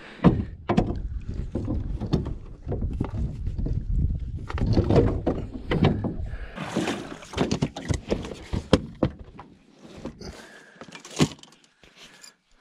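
Clunks, knocks and scraping as a grey plastic boat seat is handled and shifted in an aluminum boat, with a sharp knock about eleven seconds in.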